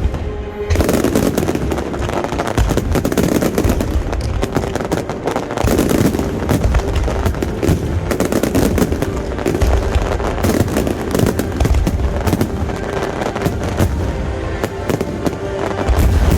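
Finale fireworks barrage: a dense, continuous run of rapid crackling bangs over low booms.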